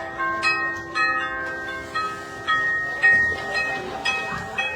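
Orthodox church bells being rung by hand: several bells of different pitches struck in an uneven pattern, about two strikes a second, their ringing overlapping.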